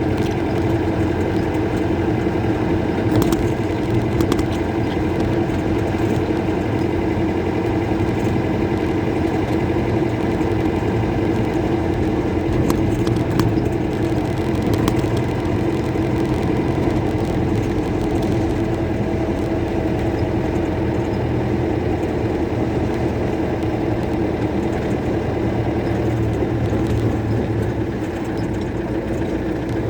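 Mercedes-Benz OM-314 four-cylinder diesel engine in a Toyota Bandeirante running steadily with a light rumble.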